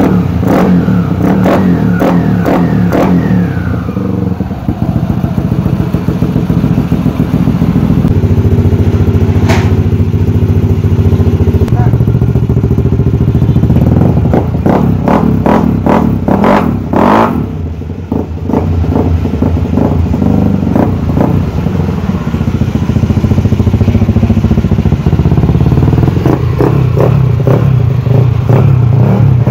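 Single-cylinder engine of a Yamaha NMAX v1 scooter, built up to 230cc with a JVT cylinder head and JVT exhaust pipe, running loudly and revved up several times, with a spell of hard revving in the middle and again near the end.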